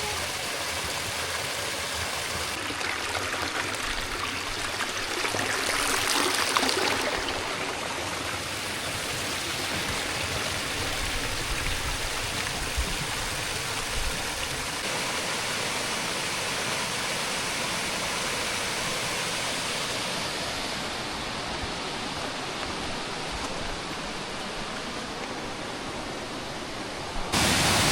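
Stream water flowing steadily, swelling louder for a couple of seconds about six seconds in. Near the end the rush of water suddenly becomes louder.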